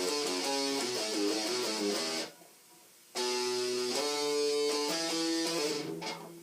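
Electric guitar with a DiMarzio Crunch Lab humbucker, played through a Line 6 Uber Metal distortion pedal into a small 10-watt Fender amp: a distorted riff. The riff stops abruptly about two seconds in, starts again about a second later, and dies away near the end.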